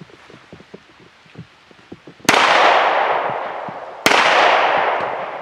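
Two handgun shots fired about two seconds apart, each a sharp crack followed by a long echoing tail that fades slowly.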